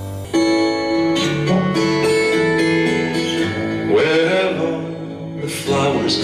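Acoustic guitar song with a male voice singing, played back through a loudspeaker; it starts abruptly just after the beginning, replacing a piano piece.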